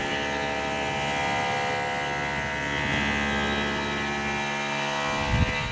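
Tormach CNC mill spindle running at 4,000 RPM with a 1-inch Superfly cutter milling aluminum at its 40 in/min cutting feed: a steady machine hum with several held tones. A brief low thump comes near the end.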